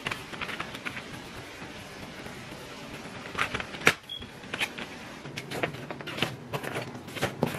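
School supplies being handled on a stone countertop: folders, pencil boxes and small plastic items set down and shuffled, with scattered sharp taps and clicks, the loudest just before four seconds in.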